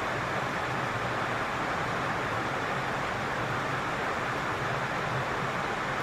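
Steady rushing of flowing stream water, an even hiss with no separate splashes, over a faint low hum.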